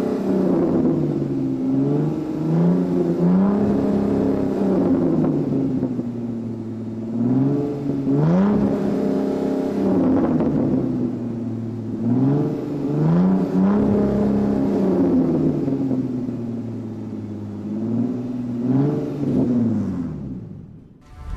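Car engine revving up and down again and again, with the pitch rising and falling every few seconds, fading out near the end.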